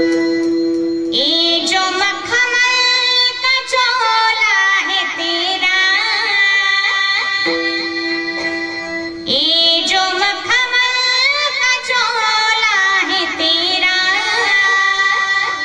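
Music from a Hindi devotional song: a pitched melodic line gliding up and down over a sustained drone note.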